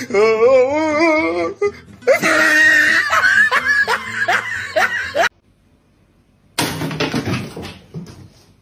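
Comic sound effects and laughter: a warbling, wobbling tone, then laughter with a run of short rising squeals. After a brief silence, a burst of noise fades away near the end.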